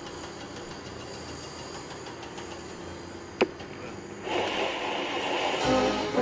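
Low studio hiss with a single sharp click a little over three seconds in. Just after four seconds a noisy swell comes in, and near the end a recorded heavy metal track starts playing.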